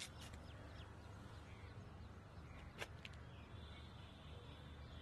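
Near silence: a faint outdoor film ambience with a low steady hum, broken by two sharp soft clicks, one at the start and one about three seconds in.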